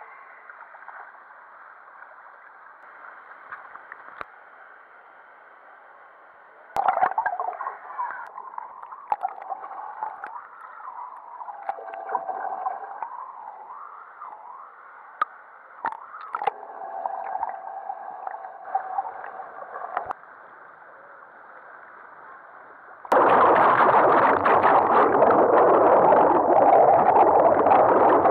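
Water heard muffled through an action camera's waterproof housing: gurgling and sloshing with wavering, bending tones. About three-quarters of the way through, a sudden loud, steady rush of churning water sets in as the camera is in bubbling water under the surface.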